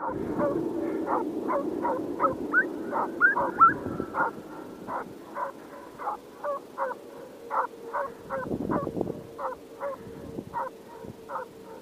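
Estonian hounds baying at a distance: a steady run of short yelping barks, about two to three a second, louder in the first few seconds. It is the cry of hounds giving tongue as they run a trail.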